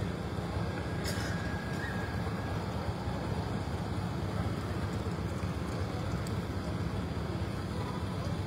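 Steady low rumbling noise, with a faint brief click about a second in.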